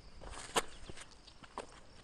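Irregular footsteps scuffing and crunching over flood debris, with scattered clicks; the loudest scrape ends in a sharp snap about half a second in.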